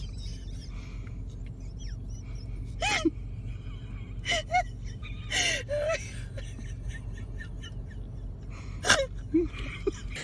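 Small puppy giving a few short yaps, about four spread over several seconds, the loudest near the end, over a steady low hum.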